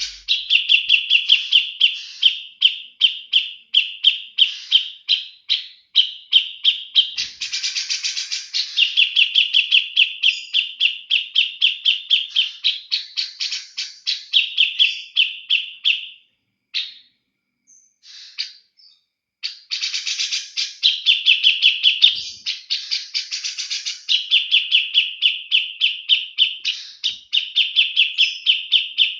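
Cucak jenggot (brown-cheeked bulbul) singing in long runs of fast, repeated chattering notes, with a pause of about three seconds a little past the middle.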